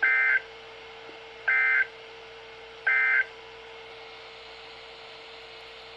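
NOAA Weather Radio EAS end-of-message signal: three short bursts of SAME digital data tones, each under half a second and about one and a half seconds apart. They mark the end of the alert. A faint steady tone runs underneath.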